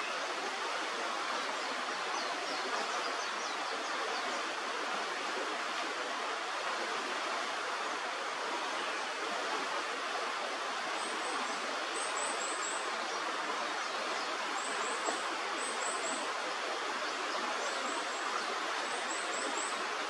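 Steady rushing of a river. In the second half come faint, very high chirps in quick runs of three or four.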